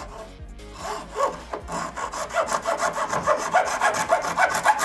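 A hand tool is cutting down a ribbon-cable connector that is too big to fit, in rapid back-and-forth rasping strokes. The strokes come about three a second, start about a second in and grow louder.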